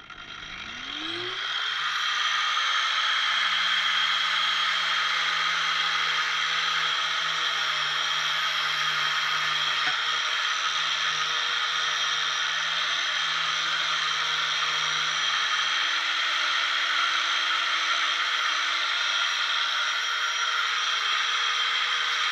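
Electric angle grinder starting up, its pitch rising over the first couple of seconds, then running steadily at full speed with its disc worked against the fibreglass underside of a boat's deck.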